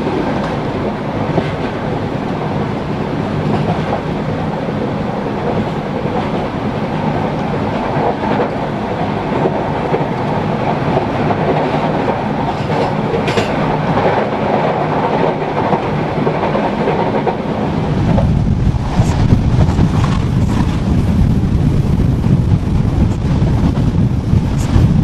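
Sleeper train coach running at speed, its wheels rumbling steadily on the rails with a few sharp clicks. About 18 seconds in, the rumble turns louder and deeper.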